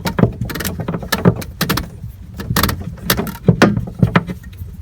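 Irregular clicks, knocks and rattles of plastic tubing and wire connectors being handled and fitted together, over a steady low hum.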